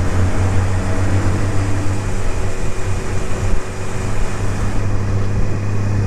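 Honda Gold Wing motorcycle's flat-six engine running at a steady cruise, with wind and road noise, heard from on board the moving bike. The level dips briefly about halfway through.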